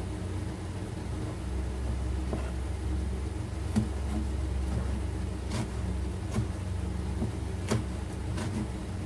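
A kitchen knife chopping small red chilies on a plastic cutting board: a handful of sharp, irregularly spaced taps of the blade on the board, over a steady low hum.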